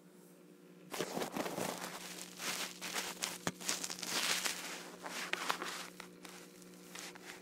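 Irregular crackling and rustling close to the microphone, beginning suddenly about a second in, from the phone being handled and moved about, over a steady low hum.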